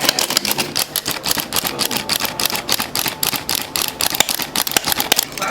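A whisk beating batter in a bowl: fast, even clicking of the wires against the bowl, about eight to ten strikes a second.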